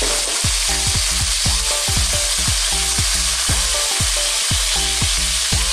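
Chicken drumsticks frying in hot corn oil in a pan, a steady, continuous sizzle.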